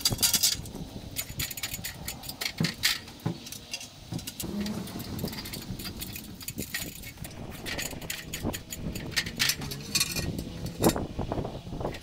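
Metal scaffold and ladder parts clanking and rattling as they are handled and fitted together: an irregular string of sharp knocks, the loudest right at the start and again near the end.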